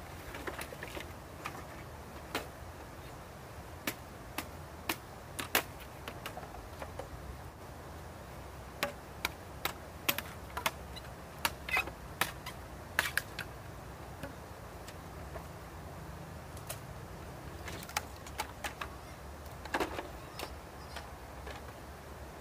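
Pieces of dry bamboo clacking and knocking against each other as they are gathered up and stacked, in irregular sharp clacks.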